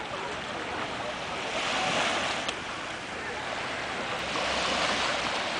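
Small surf breaking and washing up a sandy beach, a steady rushing hiss that swells twice as waves come in.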